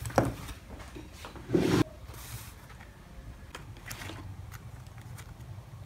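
Stationery being handled on a desk: a sharp tap, a short scraping rustle about a second and a half in, then a few faint clicks of notebooks, pen and small items being moved.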